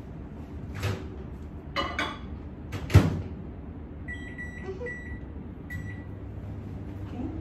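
Microwave oven being used: a couple of clicks, the door shut with a sharp knock about three seconds in, then a few short keypad beeps, after which the oven starts running with a steady low hum.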